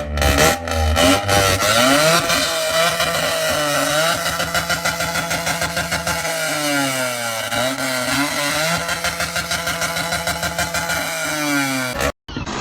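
An engine running with a fast pulsing sound, its pitch rising and falling again and again as it revs, cutting off suddenly near the end.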